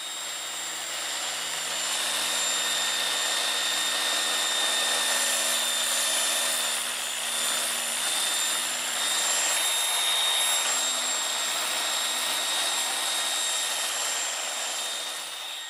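Dual-action (DA) sander running steadily with 180-grit paper on a painted car side skirt, a high whine over the hiss of the paper, sanding down chipped paint and feather-edging it.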